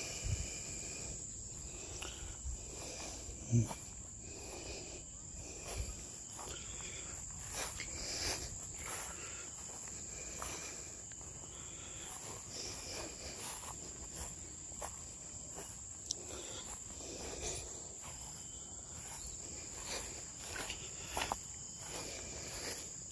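Insects chirring in a steady high-pitched drone, with scattered soft rustles and clicks throughout.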